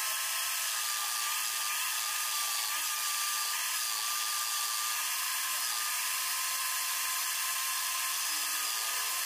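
Power drill spinning an electric motor's armature in its chuck while a flat metal blade is held against the armature: a steady high whine over the hiss of metal scraping.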